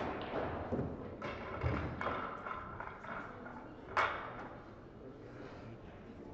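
Knocks and thuds of pool play: duller thuds in the first two seconds, and the loudest, a sharp click about four seconds in, over a steady hall murmur.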